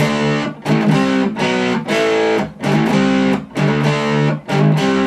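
Fender Jazzmaster HH electric guitar through a distorted sound on its neck pickup, switched to single-coil mode, playing a repeated chord passage. Each chord starts sharply and is cut short before the next.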